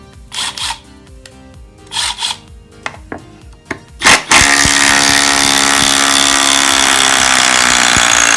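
Milwaukee M12 Fuel FID Gen 2 brushless impact driver: two short bursts of the motor spinning, then about four seconds in it starts hammering steadily under load, driving a long lag bolt into wood without a pilot hole.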